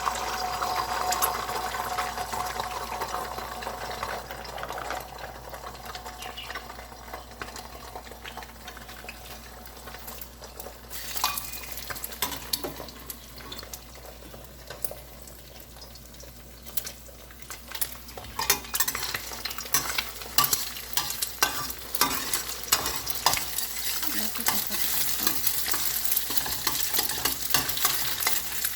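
Beaten egg frying in a little hot oil in a pan, sizzling as it is stirred and scraped with a utensil. The sizzle is loudest at the start and dies down over the first several seconds; from about two-thirds of the way through, the clicks and scrapes of stirring come thick and fast over a louder sizzle.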